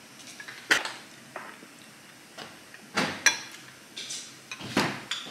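Chopsticks and tableware clinking and knocking against dishes at the table, a few separate sharp clicks.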